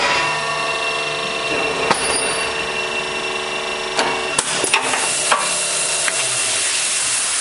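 Powered shop press running with a steady machine hum as its ram pushes down on a Horton fan clutch pulley, pressing the bearing out. Several sharp metallic clicks and knocks come around the middle, and the hum's low note shifts near the end.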